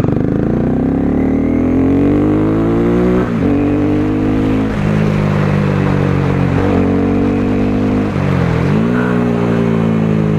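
Honda CBR250R single-cylinder engine revving through an Akrapovic exhaust with its dB killer removed. The revs climb over the first three seconds, then hold steady with short dips about three, five and six and a half seconds in, and a deeper drop and climb back about eight seconds in.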